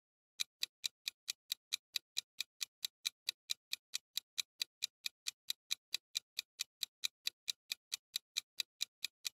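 Countdown-timer ticking sound effect: clock-like ticks, evenly spaced at about four to five a second, starting about half a second in.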